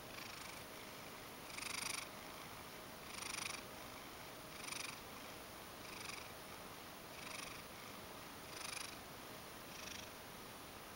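Ragdoll cat purring while being stroked, the sound swelling about every second and a half.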